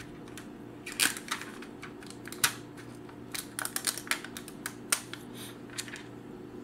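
Hands shuffling and handling a stack of cardstock die-cut pieces: a run of small crisp clicks and rustles, the sharpest about a second in and again around two and a half seconds.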